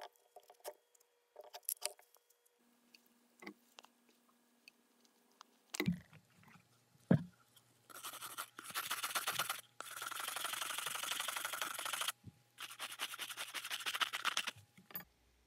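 Stiff brush scrubbing caked dirt off the plastic impeller of a Stihl SH86C shredder vac, in three spells of quick back-and-forth strokes. Two knocks come just before the scrubbing starts.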